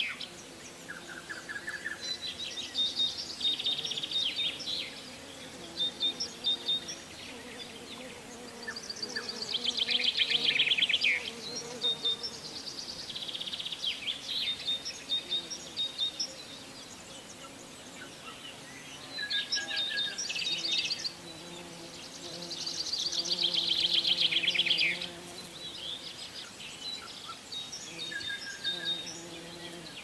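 Songbirds singing: a song of rapid trilled notes, each about two to three seconds long and repeated every few seconds, with shorter chirps in between, over a faint steady low hum.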